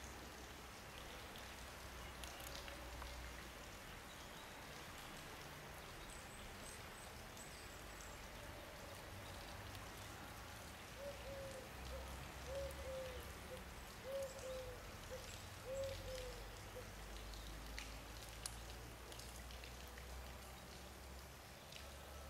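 Quiet outdoor background: a steady faint hiss and low rumble with scattered light ticks. Near the middle, a run of short pitched notes comes about every half second for several seconds.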